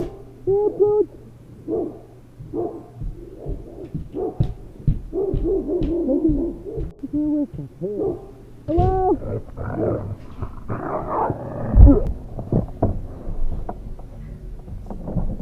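A dog barking and yelping in a run of short calls, some drawn out into arching, howl-like whines, busiest and loudest about nine to twelve seconds in.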